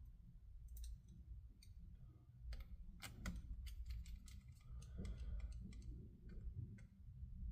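Irregular small sharp clicks and taps of a screwdriver and small screws being fitted back into a laptop's bottom case.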